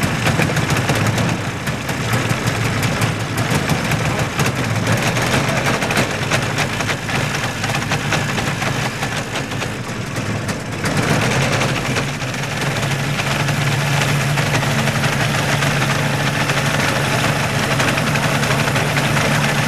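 Small air-cooled engine of a homebuilt ultralight airplane running, its propeller spinning. The note settles and becomes steadier a little past halfway.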